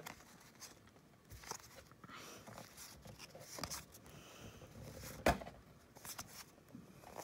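Cardboard trading cards being slid off a stack and flipped onto another pile by hand: faint scattered clicks and rustles, with one sharper card snap about five seconds in.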